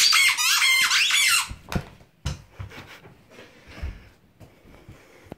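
Squeaky toy ball squeaked rapidly in a dog's mouth as it chews, a dense run of wavering high squeaks for about the first second and a half. Then a few soft thumps and faint rustling.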